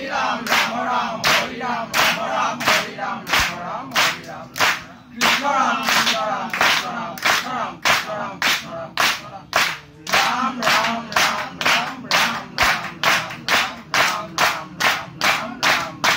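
Group of men chanting naam prasang (Assamese devotional chant) together, keeping time with loud unison hand claps at about two a second, quickening to about three a second near the end.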